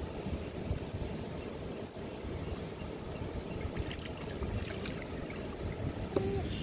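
Water sloshing and trickling as hands rinse food in shallow river water, a steady soft splashing with no sharp strokes.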